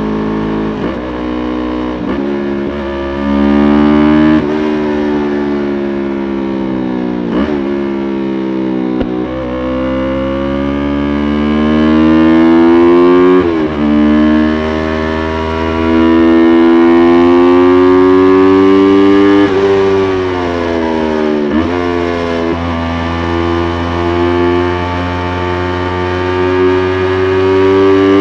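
2020 Yamaha YZF-R3's 321 cc parallel-twin engine pulling hard through the gears. Its pitch climbs steadily and then drops abruptly at each shift, about ten times.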